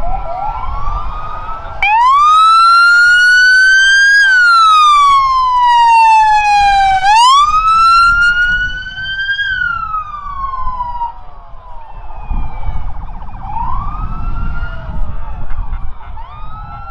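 Emergency vehicle sirens wailing as the vehicles pass, several at once. One loud, close siren sweeps slowly up and down in long wails from about two seconds in until it fades at about eleven seconds, over fainter sirens and a low vehicle rumble.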